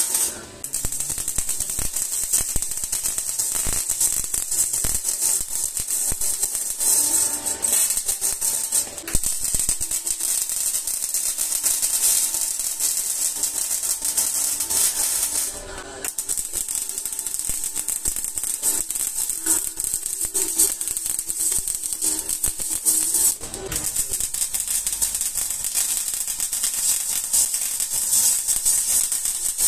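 MIG welding arc running on 304L stainless-steel pipe with solid 308 wire: a steady, dense crackling sizzle. It breaks off briefly near the start, about halfway through and again about three-quarters through, as the arc is stopped and restarted between welds.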